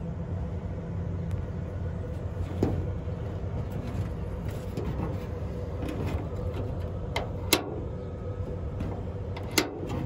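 A few sharp metallic clicks and taps from a Chevrolet Astro van's sliding-door latch and linkage rods being pushed by hand, over a steady low hum. The two loudest clicks come about two seconds apart near the end.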